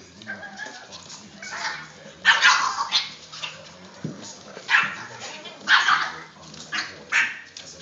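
Boston Terrier puppies barking in short yaps during play: a string of brief barks, about eight in all, some bunched close together.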